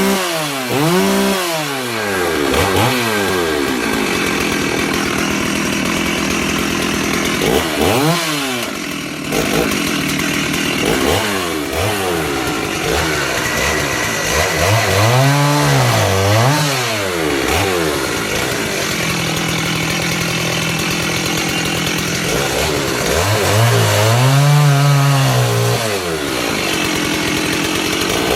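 Stihl 038 AV Super 61cc two-stroke chainsaw running, revved up and down in several swells with stretches of steady high revs between them. Its low-speed carburettor needle has just been reset to 1 1/4 turns out after it was found running too rich.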